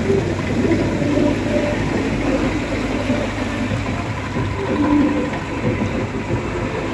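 Jeep engine running with steady road noise while driving.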